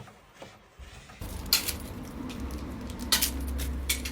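Light rustling and scattered clicks of objects being handled, over a low steady hum that starts about a second in.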